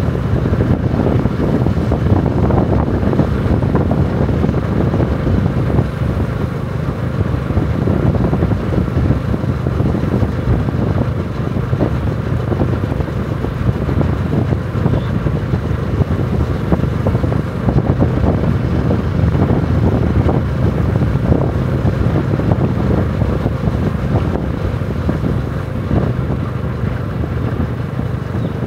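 Steady low rumble of a running vehicle engine, with wind on the microphone.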